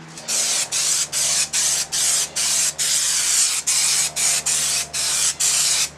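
Spray adhesive being sprayed onto headliner material in a rapid series of short hissing bursts, about two and a half a second.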